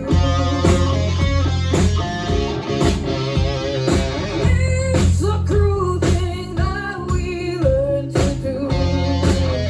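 Live rock band playing loudly: electric guitar over bass guitar and a steady drum beat, with singing.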